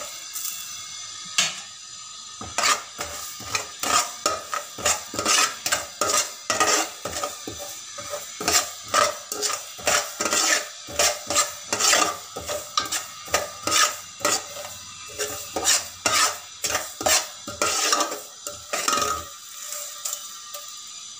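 A metal spoon scraping and stirring cumin and fenugreek seeds as they dry-roast in an aluminium pot, in quick repeated strokes of about two a second. The stirring stops near the end.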